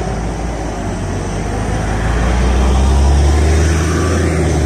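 NefAZ 5299 city bus with a Weichai WP7NG260E51 compressed-natural-gas engine pulling away from the stop, its low engine note growing louder about two seconds in and then holding steady.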